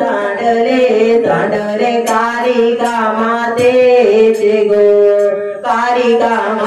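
A man singing a Marathi gondhal devotional song into a microphone in long, held, wavering notes, in a chant-like style.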